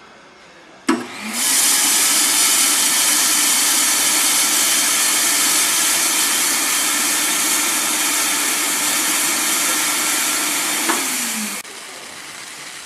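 Vacuum hopper loader for green coffee beans switched on with a click: its suction motor spins up, runs loud and steady with a hum, then winds down and stops near the end. A quieter hiss follows as the loaded grain pours out of the hopper into a cardboard box.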